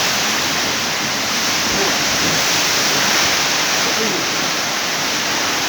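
Strong wind with heavy rain: a steady, loud rushing noise. Faint voices come through about four seconds in.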